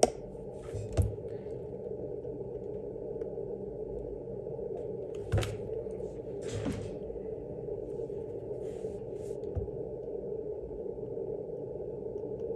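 A spudger scraping leftover double-sided tape out of an open MacBook Pro butterfly-keyboard key slot: a few short scratches and clicks, about a second in, around five to seven seconds in and again near nine seconds, over a steady low background hum.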